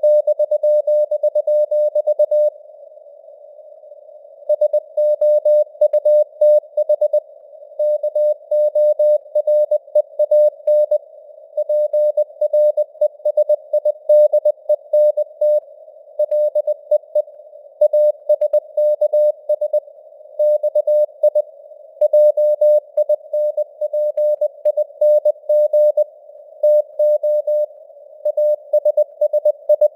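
Morse code (CW) sent at 20 words per minute as a single mid-pitched beeping tone keyed on and off in dots and dashes, over a soft hiss of simulated radio noise. The keying pauses for about two seconds near the start.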